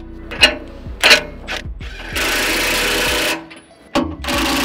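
Cordless impact wrench running nuts down onto the plough bolts of a bolt-on excavator bucket tooth. A couple of sharp knocks come in the first second, then two bursts of steady hammering: one from about two seconds in lasting over a second, and another starting near the end.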